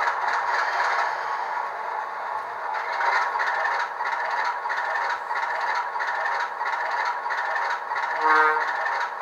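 Model Alco RS-2 diesel locomotive's LokSound sound decoder playing a running diesel engine through its small on-board speaker, with a clattering, rattling quality. A short tone sounds about eight seconds in.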